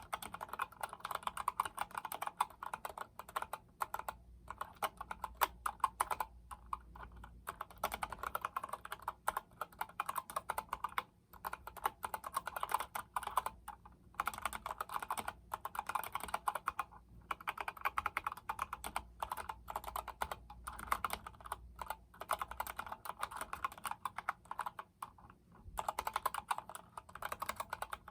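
Typing on an Epomaker GK73X mechanical keyboard with Gateron Yellow linear switches: a fast, steady run of keystrokes broken by brief pauses every few seconds.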